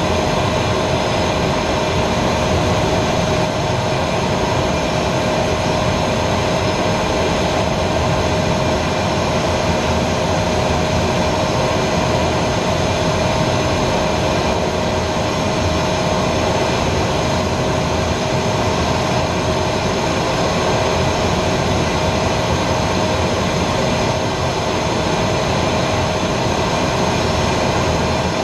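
Aero L-29 Delfín's single turbojet engine and rushing airflow heard from inside the cockpit in cruise: a loud, steady roar with a constant whine, unchanging in pitch and level.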